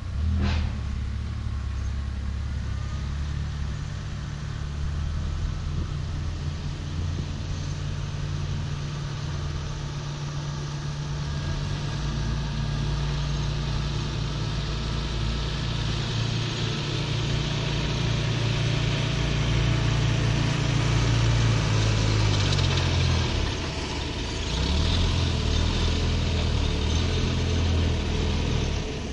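Diesel engine of a heavy vehicle running steadily. Its pitch falls away about 22 seconds in and picks up again about two seconds later. A sharp click sounds at the very start.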